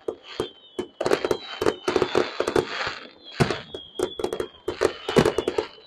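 Fireworks display: a rapid, irregular string of bangs and crackling pops, with a short lull about halfway through. A faint high whistle glides slowly downward underneath.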